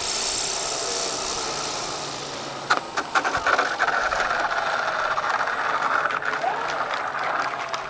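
Sound module aboard a large electric RC Albatros D.Va scale biplane, playing a rapid knocking, rattling engine-like sound as the model rolls out on the runway after landing. A high hiss fades in the first couple of seconds, and the dense rattle starts with a few sharp clicks about three seconds in.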